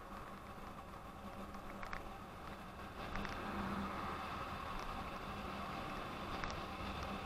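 Steady running noise of a windscreen-equipped two-wheeler on the move: a low motor hum under wind and road noise, with a few light clicks or rattles.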